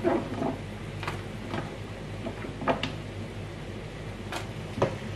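Scattered light knocks and clicks as pieces of fingerroot are handled and dropped into a pot of simmering dried chillies, over a steady low hum.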